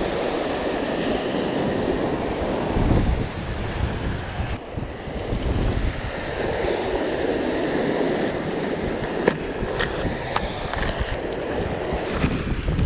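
Small waves breaking and washing up over a pebble beach in swells every few seconds, with wind buffeting the microphone. A few light clicks in the second half.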